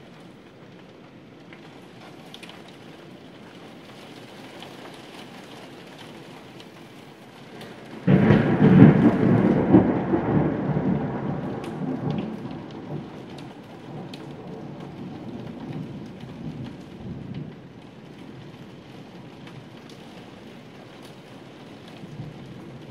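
Steady rain falling throughout. About eight seconds in, a sudden loud clap of thunder breaks and rumbles, fading away over about ten seconds.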